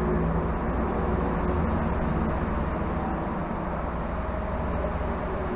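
Steady low rumble of highway traffic passing over a concrete tunnel, echoing inside it.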